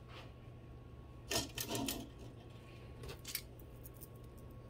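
Beads of a multi-strand beaded bracelet clicking and rattling against each other as it is picked up and handled, in a cluster of clicks about a second and a half in and a few more shortly after three seconds.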